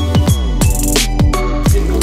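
Electronic background music with a steady beat, deep bass notes and repeated falling pitch glides.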